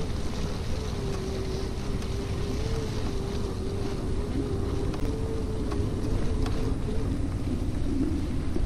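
Electric bicycle hub motor whining at a steady, slightly wavering pitch while riding, with wind rumbling on the chest-mounted camera's microphone; the whine drops lower about seven seconds in.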